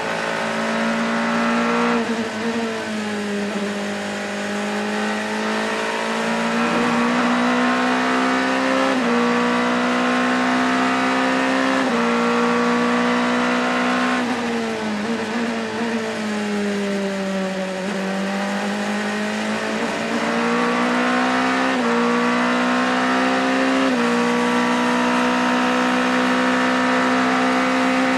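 LMP2 prototype's 4.2-litre Gibson V8 heard from the cockpit at racing speed, its pitch stepping with quick gear changes. The note sags for a few seconds past the middle as the car slows, then climbs again under acceleration, over steady wind and tyre noise.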